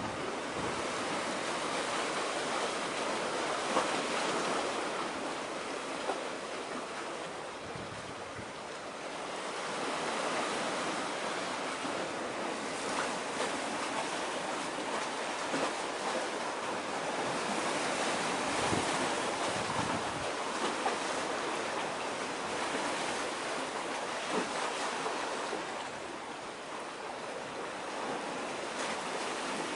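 Sea surf rushing, a steady wash that swells and eases every few seconds, with some wind.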